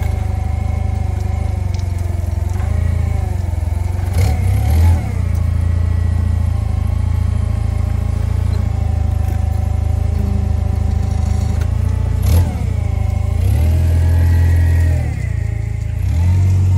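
Toyota forklift's engine running and revving up and down several times as the truck manoeuvres a pallet, with a couple of short clunks.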